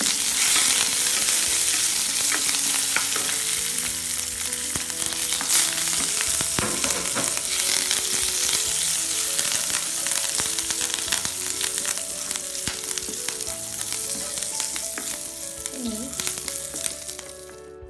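Green chillies and curry leaves sizzling and spattering in hot oil in a kadai, stirred now and then with a spatula; the sizzle is loudest at first and dies down near the end.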